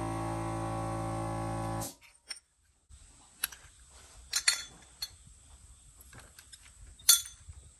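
Guitar music for about the first two seconds, cutting off abruptly. After a brief hush come light metal clicks and clinks as small carburetor parts are handled and set into a small metal cup, with one sharp clink about seven seconds in.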